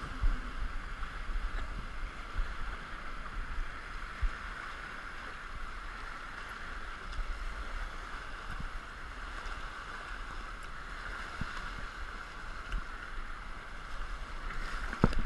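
Glacial river whitewater rushing and churning steadily around an inflatable raft running through rapids, with a constant low rumble and a few dull knocks.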